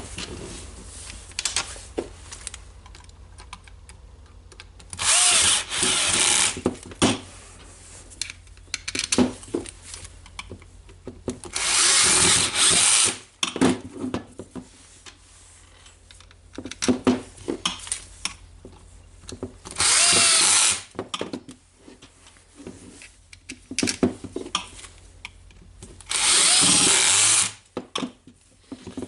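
Power screwdriver running in four short bursts of about a second and a half each, driving in the screws of a router's cover, with light clicks and knocks of handling between the bursts.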